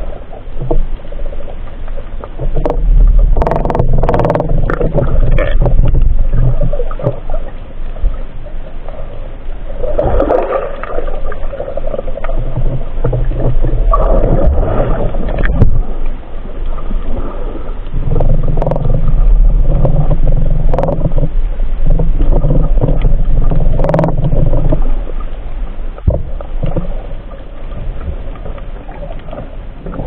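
Muffled underwater ambience picked up by a diver's camera: water rumbling and swishing in swells, with a few sharp clicks about three to five seconds in and again later.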